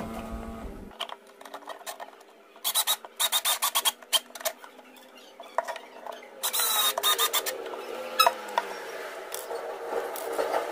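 Small cordless electric screwdriver driving screws into concealed cabinet hinge plates, running in several short bursts with rapid clicking, and one sharp click about eight seconds in.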